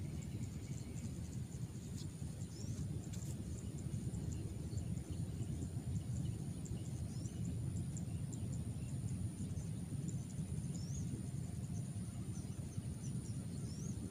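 Outdoor ambience: a steady low rumble, with a few short rising bird chirps scattered through it and a thin, high, steady whine above.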